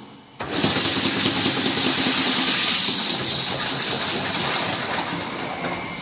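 Inner-tank welding machine for solar water heaters running on a steel tank: a steady high hiss that starts abruptly about half a second in and eases off slightly near the end.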